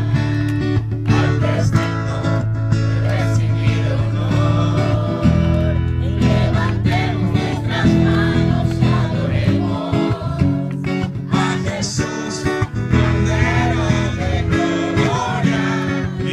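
A worship song played on strummed acoustic guitar over sustained low chords, with voices singing.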